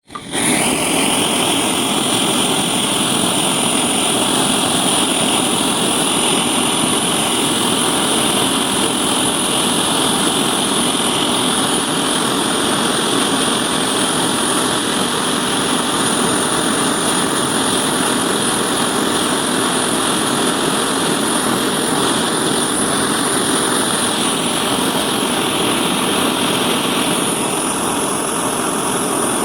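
Gas brazing torch flame running with a steady, loud roaring hiss while brass is silver-soldered; a higher hissing part eases off near the end.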